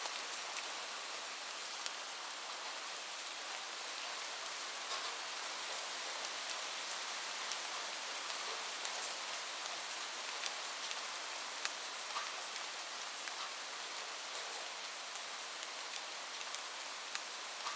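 Steady rain falling on a roof: an even hiss with many scattered individual drops ticking sharply over it.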